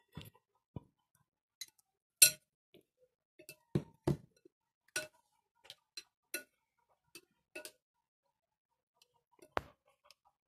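A metal spoon clinking against a ceramic bowl while stirring fruit into cream: a dozen or so scattered, irregular single clinks with a brief ring, the loudest about two seconds in.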